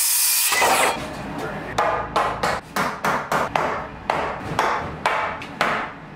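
A Milwaukee circular saw finishes cutting through a wooden board in the first second. Then a hammer strikes nails into the wooden framing of a new wall again and again, about two blows a second, each blow ringing briefly.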